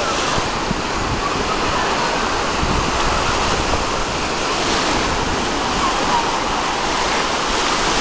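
Small waves breaking and washing up a sandy beach in a steady surf wash, with faint voices of beachgoers in the background.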